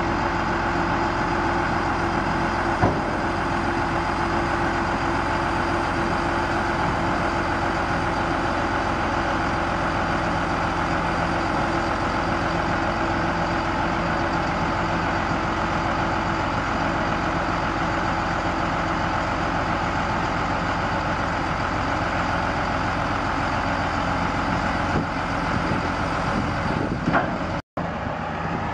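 Cummins 5.9-litre inline-six diesel of a 2000 Sterling L7500 truck idling steadily while its scissor-lift bed lowers, with a single sharp click about three seconds in. The sound cuts out for a moment near the end.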